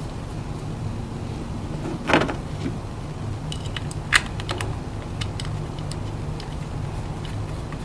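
Scion tC's 2AZ-FE inline-four engine idling steadily, with a loud metallic clank about two seconds in, a sharp click about two seconds later and scattered light ticks.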